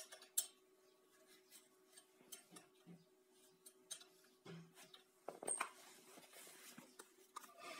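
Scattered light metallic clicks and taps of a wrench on the bolts of a small surface water pump, loosened slightly so the impeller no longer rubs against the housing wall, over a faint steady hum.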